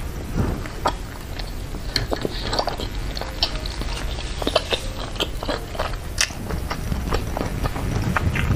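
Close-miked chewing of a mouthful of beef meatballs (bakso) in chili broth: wet mouth sounds with frequent small clicks and smacks.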